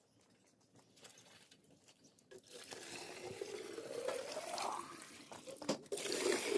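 Water pouring or splashing, with a rising pitch in the middle and a second louder pour near the end.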